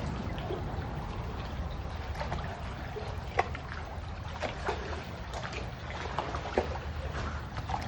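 Scattered sharp taps and knocks of a knife working on crappie being cut up, over a steady low rumble.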